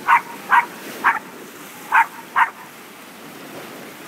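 A small dog barks five short times, three then two, over the steady noise of sea surf breaking on rocks.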